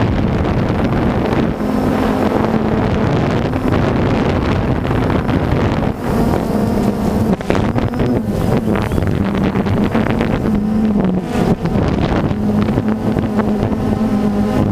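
Steady engine and rotor hum of the aircraft flying the camera, a held drone that wavers slightly in pitch, with wind rushing over the microphone.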